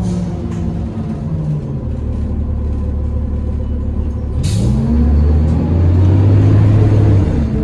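A 23-year-old city bus engine heard from inside the cabin. It eases off at first; about halfway through there is a short sharp hiss, and the engine pulls harder with its pitch rising into a loud low drone, which drops back near the end.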